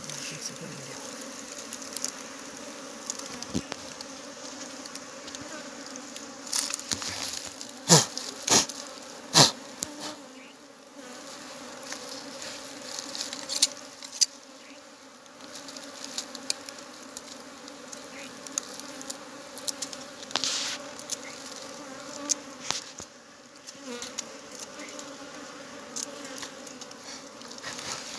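A swarm of honeybees buzzing steadily around their opened wild nest as the honeycomb is cut out. Scattered sharp knocks and crackles cut through the buzz, loudest and closest together about eight to ten seconds in.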